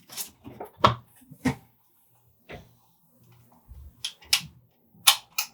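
Sharp, irregular clicks and clacks of an airsoft Colt Python revolver and its shells and speed loader being handled, about eight in all, with two quick pairs near the end.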